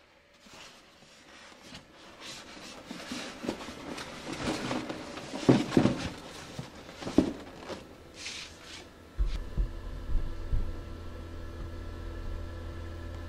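Handling knocks and scrapes on a foam incubator as eggs are set in and the lid is put back on, loudest around the middle. About nine seconds in, a steady electric hum from the Genesis Hovabator's circulating fan starts abruptly and runs on.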